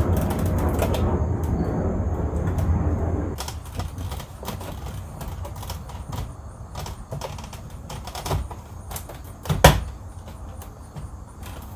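Plastic centre-console trim around the shift lever of a Nissan Skyline R33 being tugged and handled: scattered clicks and knocks, with one sharp knock near the end. A low rumble runs underneath for the first three seconds or so, then stops.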